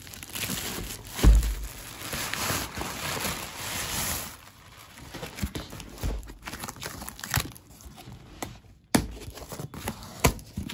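Plastic wrapping and packing tape crinkling and tearing as a parcel is unwrapped, with a loud thump about a second in. After about four seconds it gives way to a cardboard box being handled and its flaps opened: scattered light knocks and scrapes, with a sharp knock about nine seconds in.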